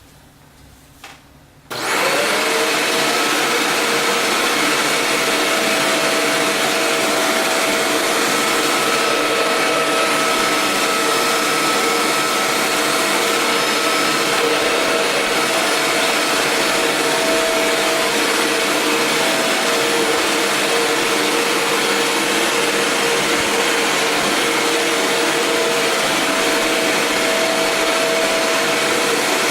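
Shark Rotator Powered Lift-Away upright vacuum cleaner switched on with a click about a second in; the motor spins up almost at once and runs steadily with a whine. Its tone shifts slightly a couple of times as its settings are switched.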